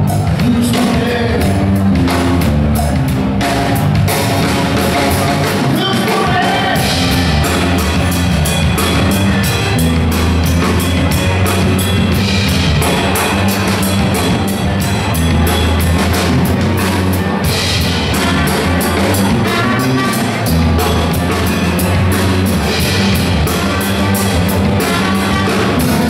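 Live New Orleans funk band playing a groove: drum kit, electric bass, guitar and trumpet.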